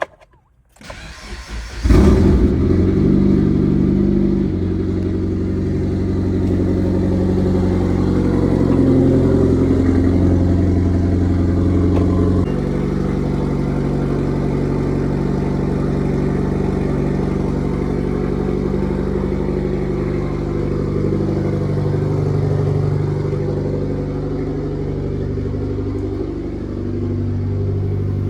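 Mitsubishi Lancer Evolution X's turbocharged 2.0-litre four-cylinder (4B11T) cold-started: a brief crank, catching about two seconds in, then settling into a loud, steady cold fast idle whose pitch steps down a couple of times as it settles.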